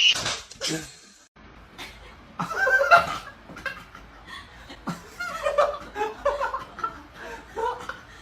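People laughing and chuckling in several uneven bursts, loudest right at the start and again about two and a half seconds in.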